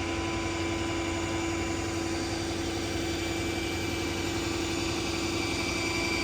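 A vehicle engine idling steadily, a constant even hum with no change in speed.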